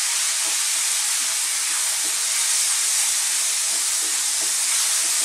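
Cream, mushrooms and sweetcorn sizzling with a steady hiss in a frying pan over a fairly high heat, stirred with a wooden spoon.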